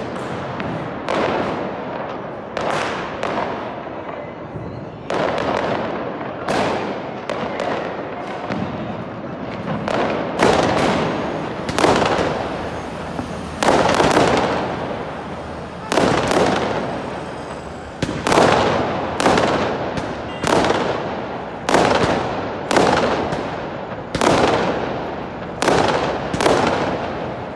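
Aerial fireworks going off in a long barrage, one loud bang after another, each with a fading tail. The bangs come about once a second and come faster in the second half.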